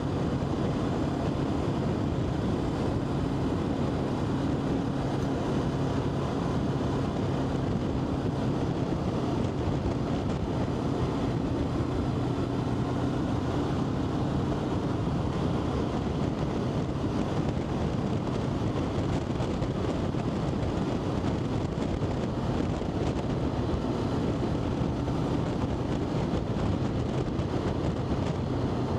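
A vehicle driving at a steady speed: a constant engine hum over road rumble that holds the same throughout.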